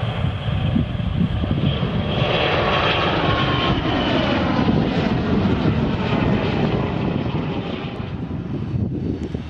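A business jet's turbofan engines passing close by, a loud rushing noise with a high whine that swells about two seconds in while the engine tones slide down in pitch as it goes past.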